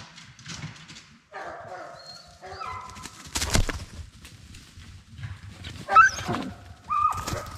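Bear hounds crying in short separate calls. The loudest is a rising cry about six seconds in as a hound runs close by.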